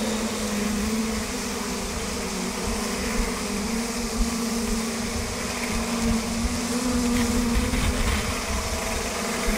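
Steady drone of a fishing boat's engine and deck machinery, a continuous pitched hum, with uneven low rumble of wind buffeting the microphone on the open deck.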